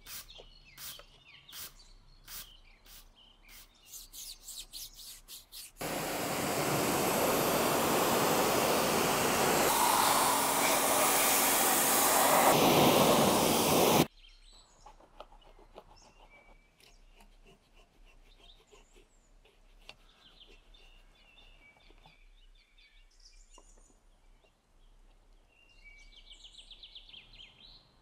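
A stiff brush scrubbing a car tyre in quick strokes that speed up. About six seconds in, a pressure-washer jet rinses the wheel for about eight seconds and cuts off suddenly. Then quieter rubbing and small handling noises at the wheel, with birds chirping.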